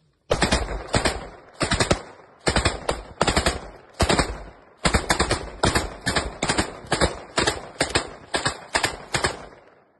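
Anti-aircraft gun firing at a drone in a rapid string of short bursts, a few shots in each, about one burst every second, with echo rolling away between bursts.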